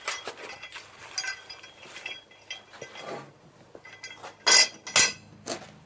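Steel traps and their chains clinking and jingling as they are handled, with two louder short scraping bursts near the end.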